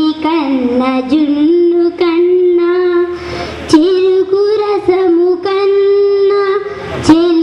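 A girl singing a Telugu song solo into a microphone, holding long notes with a few short breaks for breath.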